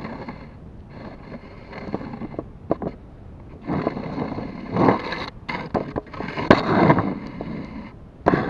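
Pomeranian puppies' fur and paws brushing and bumping against a floor-level camera: irregular rubbing and scraping noise with scattered clicks and knocks, heaviest in the middle of the stretch.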